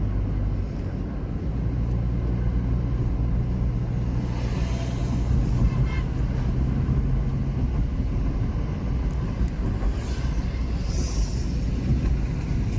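A car driving along a road: steady low engine hum and road rumble.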